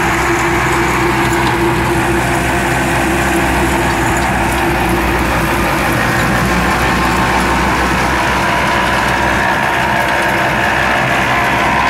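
New Holland T7200 tractor running steadily, driving a PTO-powered stone crusher: a constant engine and machine hum with a steady high tone over it.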